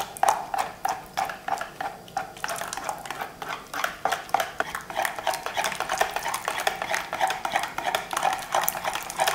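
Wire balloon whisk beating thin milk pancake batter in a plastic bowl: a rapid, fairly even run of clicks and taps as the wires strike the bowl, with the wet slap of the stirred batter, while boiling water is poured in a thin stream to scald the batter.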